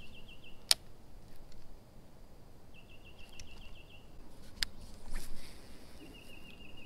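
A small songbird's rapid trill, a quick string of identical high notes sung three times with pauses between. Two sharp clicks, about a second in and past the middle, are the loudest sounds.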